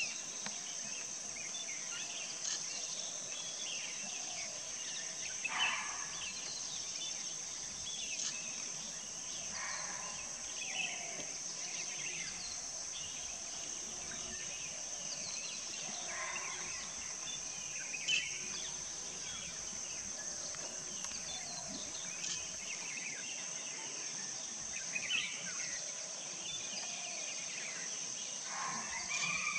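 Outdoor nature ambience: a steady high-pitched insect drone, with short bird calls scattered every few seconds.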